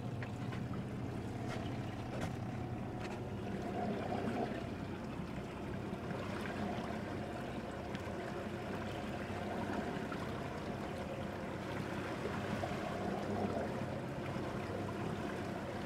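Boat engine running steadily in gear at slow trolling speed, a low even hum, with water washing along the hull.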